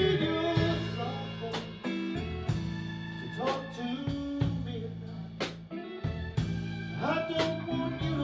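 Live blues band playing a slow instrumental passage: lead guitar with bent notes over held bass notes and a drum hit about once a second.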